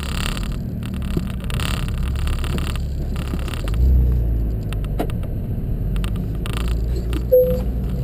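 Porsche 718's 4.0-litre flat-six engine running with a low, steady rumble as the car creeps along at low speed, heard from inside the cabin; it swells briefly about four seconds in. A short squeak comes near the end.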